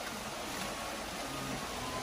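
Steady rush of stream water running over rocks at a small cascade.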